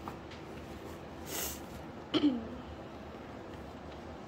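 A short hiss about a second in, then a brief vocal sound falling in pitch about two seconds in, over quiet room tone with light handling clicks.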